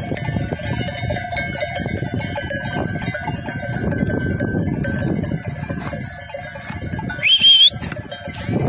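Bells on a flock of sheep and goats jangling and clinking as the animals move and graze, over a steady rough rustle. About seven seconds in, a short high call rises sharply and then holds.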